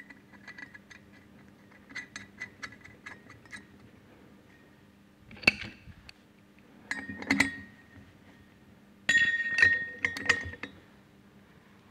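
Metal parts clinking as washers and a nut are fitted onto the shaft end of a centrifugal pump impeller: a run of small light clicks, a sharp knock a few seconds later, then a socket wrench set on the impeller nut and worked, giving a dense metallic clatter with a ringing tone near the end, the loudest part.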